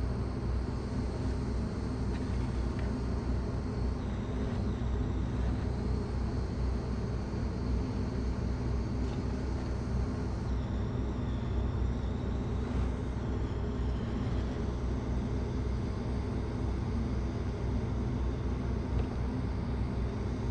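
A steady low rumble with a constant hum in it, unchanging in level throughout.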